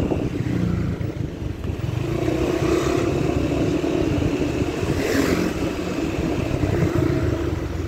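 Motorcycle engine running steadily while riding, under heavy low wind rumble on the microphone, with a brief hiss about five seconds in.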